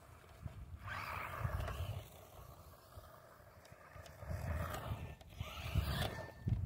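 RC monster truck driving over grass, the sound of its motor and tyres swelling about a second in and again near the end as it runs up close.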